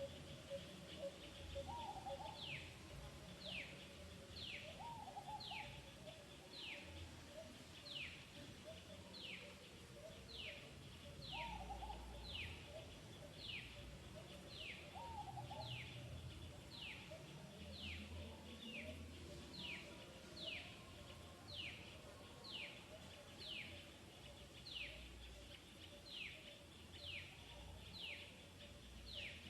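A bird calling over and over: a short, high note that falls in pitch, repeated about three times every two seconds, with a few softer, lower calls in between.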